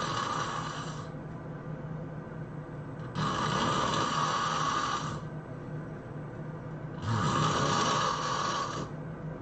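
A person snoring loudly, a rasping snore about two seconds long roughly every four seconds. The first snore ends about a second in, the next comes at about three seconds, and another at about seven, with quieter breathing in between.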